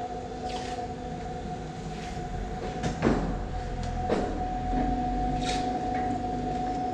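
Steady workshop machinery hum with a constant tone and low rumble, and two short swishing noises about a second apart, roughly three seconds in.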